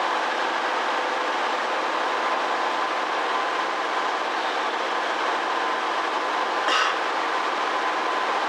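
Electric commuter train running along the line, heard from inside at the front: a steady rolling din with a faint steady whine, and a short burst of noise about seven seconds in.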